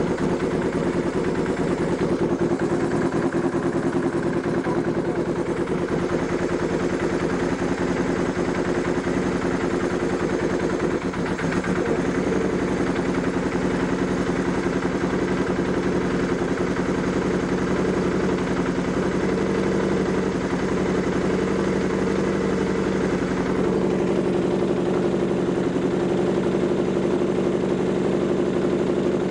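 Honda CBR1000F's four-cylinder engine running steadily at idle on choke, first run after a carburettor rebuild. Its note shifts a little about three-quarters of the way through.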